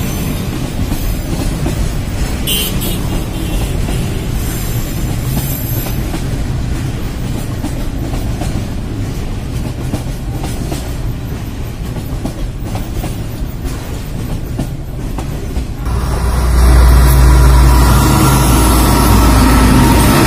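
Container freight train running past on the rails, a steady noise of wagons rolling by. About sixteen seconds in it gives way suddenly to a louder, deeper sound of the diesel locomotive's engine running close by.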